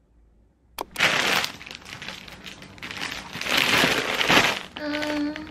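Thin plastic courier mailer bag being handled and opened, with loud crinkling and rustling that begins with a sharp click about a second in.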